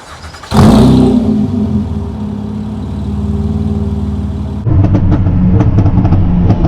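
Honda Accord V6 running through catless downpipes (pre-cat deletes). It fires up with a loud flare about half a second in and settles to a steady idle. Near the two-thirds mark it turns abruptly louder and rougher. The exhaust is very loud.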